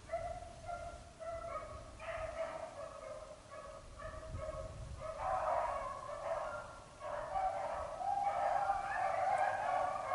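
A pack of beagles baying as they run a rabbit's track, several voices overlapping in long drawn-out notes. The chorus grows fuller about five seconds in and again later on.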